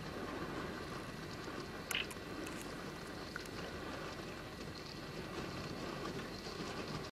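Steady low rumble with faint crackling and crunching, and one sharper crack about two seconds in: canal ice breaking up against the hull of a barge pushing through it.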